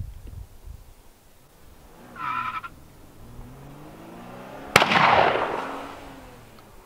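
A single gunshot about five seconds in: one sharp crack whose report rolls away over about a second and a half.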